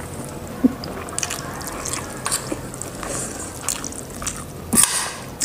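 Close-miked eating of Maggi instant noodles: wet chewing and mouth sounds, with scattered small clicks of a steel spoon against a steel bowl and a louder clatter shortly before the end.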